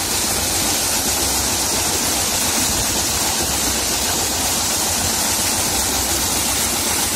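Water gushing steadily from the 6-inch outlet of a Kawamoto irrigation pump and splashing into a concrete channel, with the pump's 24 hp diesel engine running as a low steady rumble underneath.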